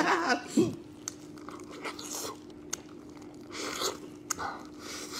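A man chewing and biting into pieces of chewy stir-fried chicken, with scattered crunches and wet mouth clicks, over a faint steady hum.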